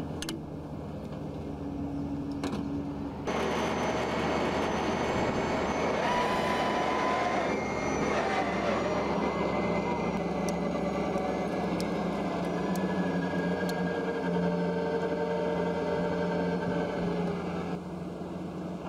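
Engine of the BM-21 Grad rocket launcher's Ural army truck running steadily, louder from about three seconds in.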